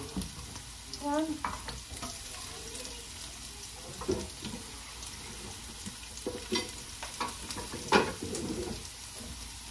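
Chopped onions frying in hot oil in a pan, a steady sizzle, with a few sharp knocks over it, the loudest about eight seconds in.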